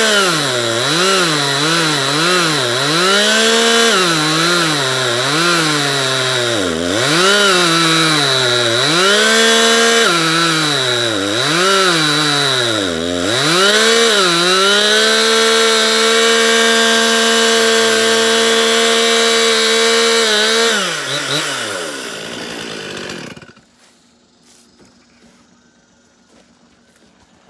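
Gas chainsaw slot-cutting into the end of a 10x10 timber post for a steel knife plate, its engine pitch dipping again and again as the chain bogs in the wood and picks back up. It then holds steady at high revs, and winds down and stops a little after 20 seconds in.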